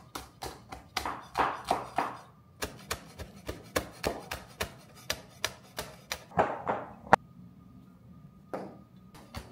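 Chef's knife chopping green onions on a wooden cutting board: quick knocks of the blade on the wood, about three or four a second, stopping about seven seconds in after one sharp click.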